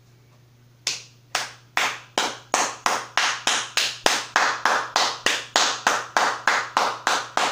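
One person clapping hands, starting about a second in, slowly at first and then steadily at about three claps a second.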